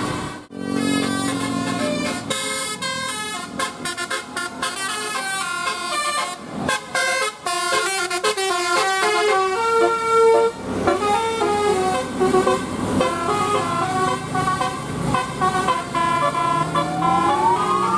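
Telolet bus horn, a multi-tone musical air horn, playing quick melodic runs of stepped notes, with a rising siren-like glide near the end.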